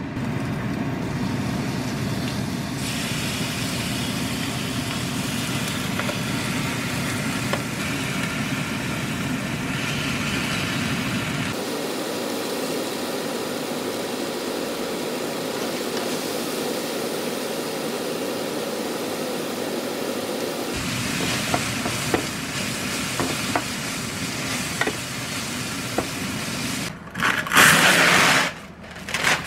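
Kitchen food-prep sounds over a steady background rush with a few faint clicks. Near the end comes a loud crinkling tear as plastic cling wrap is pulled from its box.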